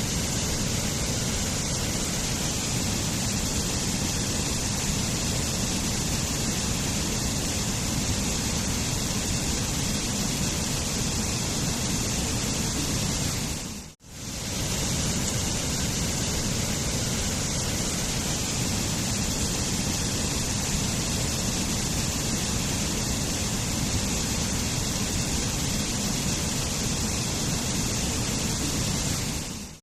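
Waterfall rushing steadily, a dense even roar of falling water. About halfway through it dips to near silence for a split second and swells straight back, as the recording loops.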